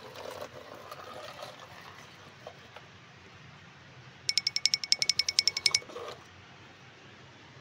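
Rapid electronic beeping, about ten short beeps a second, lasting about a second and a half a little past the middle.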